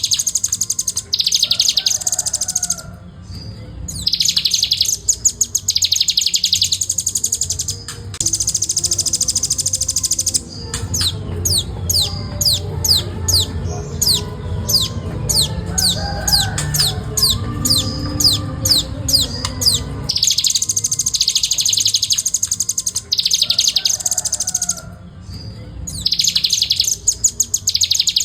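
Velvet-fronted nuthatch singing in fast, dense trills: high bursts of a second or two each, separated by short gaps. In the middle comes a run of quick downward-sliding notes, about two or three a second.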